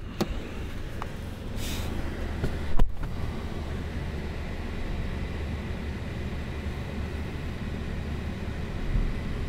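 An engine running steadily under way, with a rushing wash of noise over it. A few sharp knocks sound in the first three seconds, the loudest about three seconds in.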